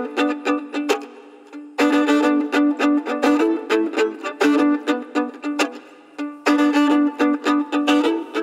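Acoustic string band playing an instrumental introduction: plucked string notes with fiddle, in three short phrases with brief pauses between them.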